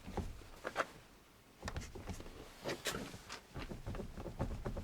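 Lada Kalina car door knocking in its hinges as it is rocked by hand: a series of irregular sharp knocks from hinge play, which the owner puts down to the extra weight of the vibration-damping mat glued into the door.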